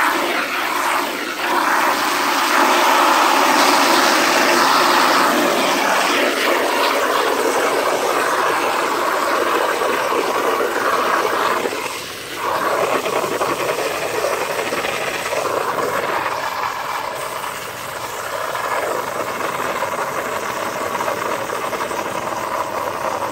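Garden hose spray nozzle running water into a plastic bucket of dish-soap water, a steady rushing splash that whips up thick suds. About halfway through the sound dips briefly and then goes on a little quieter as the nozzle is held down in the foam.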